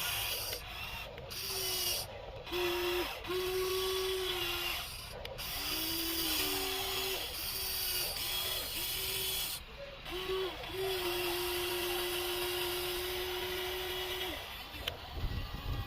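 A radio-controlled model excavator's small electric motors and gearboxes whining in short stop-start runs with gritty gear noise, as its arm, bucket and tracks are worked in turn. There is one long steady run of about three and a half seconds past the middle, then a low rumble near the end.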